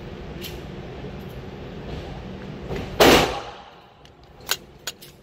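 A single gunshot about three seconds in, the loudest sound here, sharp with a short decaying tail, over a steady background hum. A few light clicks follow near the end.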